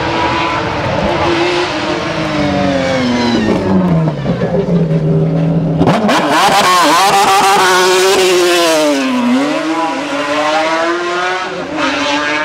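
Racing car engine revving hard. Its pitch falls away over the first few seconds and holds low, then after an abrupt change about six seconds in it revs up and down several times.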